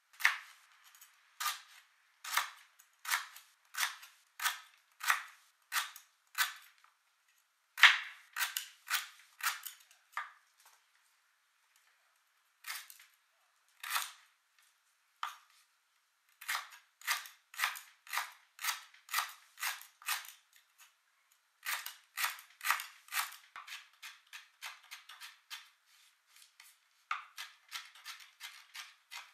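A cleaver chopping lemongrass stalks on a bamboo cutting board: sharp, evenly spaced knocks of the blade on the board, about one and a half a second, with short pauses. Near the end they turn into quicker, lighter chops as the slices are minced.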